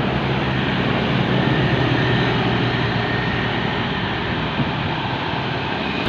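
Heavy road vehicle's engine running steadily as it passes, a low drone under dense traffic noise.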